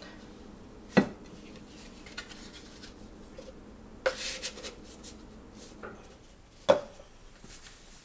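Kitchen clatter of a glass coffee-maker carafe and a cup being set down on a stone countertop: a sharp clack about a second in, a brief rattle around the middle, and another sharp clack with a short ring near the end.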